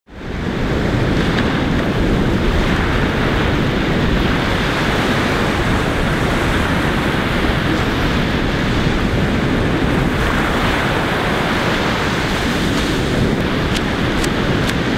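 Ocean surf washing steadily, with wind buffeting the microphone; a run of faint clicks near the end.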